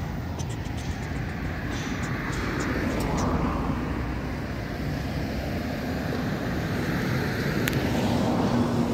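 Steady road traffic noise from passing cars, swelling and fading as vehicles go by.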